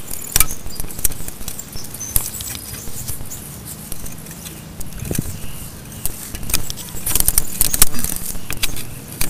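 Small metal drum-brake parts clicking and clattering as they are handled and fitted by hand, in irregular sharp clicks that bunch up in a quick flurry near the end.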